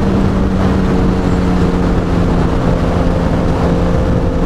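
Suzuki GSX-R 750 inline-four engine running at a steady cruise through a short-tipped exhaust, with wind and road noise over it.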